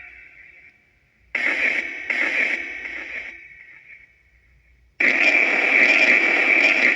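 Necrophonic spirit box app playing white noise through echo and reverb: hissy bursts that switch on suddenly, about a second in and again near the five-second mark, each dying away in a fading echo tail.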